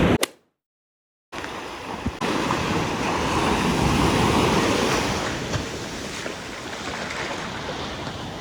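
Ocean surf washing ashore, with wind on the microphone. The sound cuts out to silence for about a second near the start, then the surf comes back and swells in the middle before easing.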